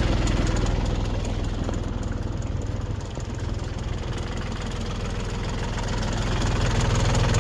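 Tractor engine idling steadily, dipping slightly in level midway and coming back up near the end.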